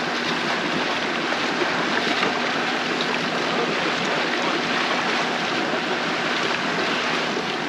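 Steady rushing hiss of sea water around a fishing boat, even throughout, with no clear engine note.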